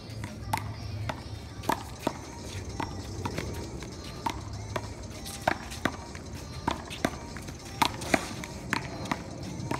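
One-wall handball rally: the rubber ball smacks sharply off players' hands, the wall and the concrete court, irregularly, about one or two hits a second. Music plays faintly underneath.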